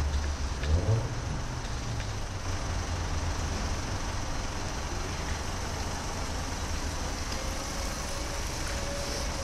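Hyster A1.50XL three-wheel electric forklift moving about: a steady low hum and rumble, heaviest in the first second, with a faint electric motor whine rising slightly near the end as it drives off.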